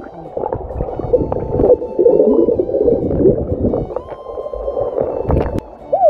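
Muffled, churning water noise heard underwater: bubbling and gurgling as a swimmer kicks past, with a sharp splash near the end as the surface is broken.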